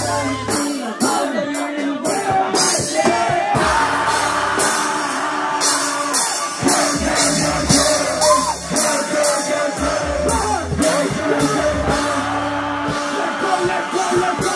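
Live band playing with a drum kit keeping a steady beat of cymbal and drum strikes, a bass line and singing over it.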